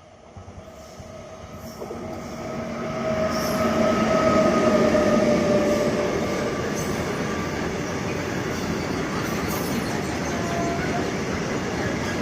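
A train approaches and runs past, its rumble growing louder over the first four seconds and then holding steady. A high whine rides over the rumble and fades after about six seconds.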